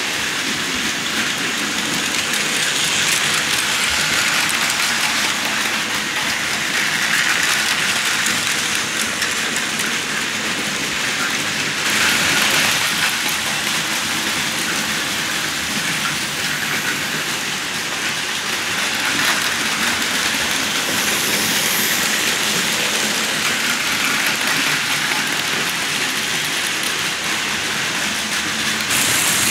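Plarail Advance toy trains and KATO N-gauge model trains running together on a layout: a steady, hissing running noise of small motors and wheels on track, swelling briefly about twelve seconds in and again around nineteen seconds.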